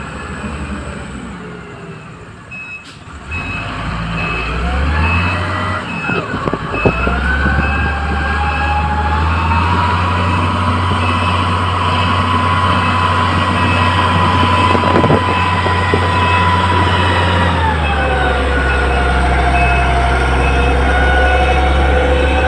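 Motor grader's diesel engine revving up a few seconds in and holding at high revs with a steady whine, then easing off near the end. A reversing alarm beeps steadily through most of it.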